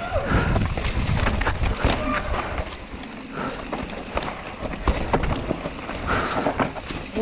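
Mountain bike riding down a dirt singletrack: the bike rattling and clattering over bumps, with wind rumbling on the microphone and a few brief squeaks.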